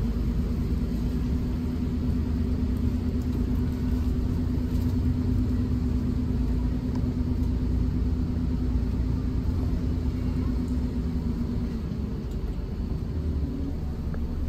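Low, steady rumble of a bus engine, with a steady hum over it that stops about twelve seconds in.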